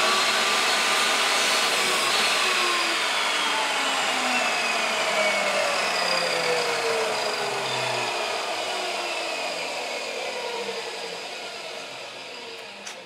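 Chicago Electric benchtop table saw running through a rip cut on a thin strip of wood, then switched off about two seconds in. Its whine falls slowly in pitch and fades as the blade winds down.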